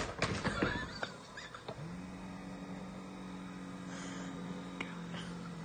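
A few knocks and clicks, then about two seconds in a small electric motor spins up and hums steadily.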